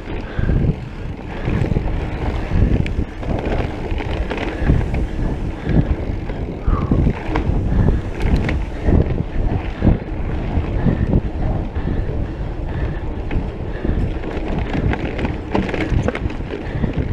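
Mountain bike riding fast over a rough dirt trail: wind buffeting the microphone over a low tyre rumble, with frequent short knocks and rattles from the bike hitting bumps.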